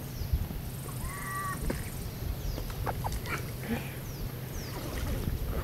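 Outdoor ambience on a lake: a steady low rumble, small birds chirping faintly, and one short squeaky honk-like tone about a second in.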